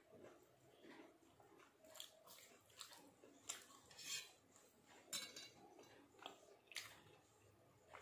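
Quiet hand-eating sounds: fingers mixing and scooping rice on a steel plate and dipping into a steel bowl, with a scatter of faint clicks and clinks against the metal, loudest in the middle.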